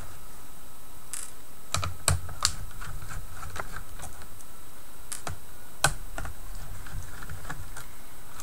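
Irregular light clicks and scrapes of a small screwdriver undoing the keyboard screws on a Dell Latitude D820 laptop, with hands knocking against the keys. The sharpest clicks come about two seconds and six seconds in.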